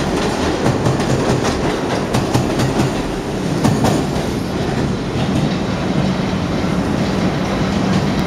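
New York City Subway R-62 train on the 3 line pulling out of the station, its steel wheels clacking rapidly over rail joints. The clacks thin out after about four seconds as the train runs into the tunnel, leaving a steady low hum.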